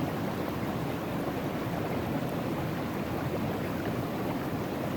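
Steady rush of river water flowing through and around a sluice box set in the stream.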